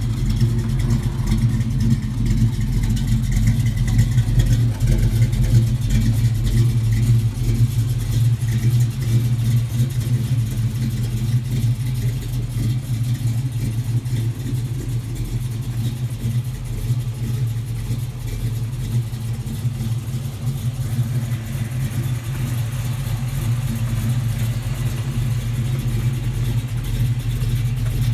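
The 1956 Chevrolet pickup's engine idling steadily, a deep, even hum.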